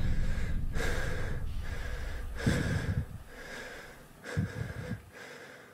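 A person breathing heavily, a series of rasping breaths about once a second that fade steadily away.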